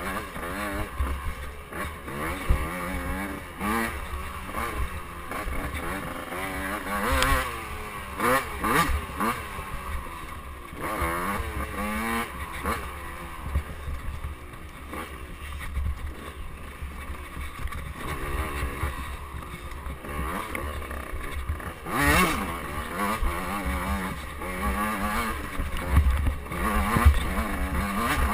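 KTM 85cc two-stroke dirt bike engine revving up and down constantly as the rider works the throttle along a rough woods trail. It is heard close from a camera mounted on the bike, with several sharp knocks from the bumps.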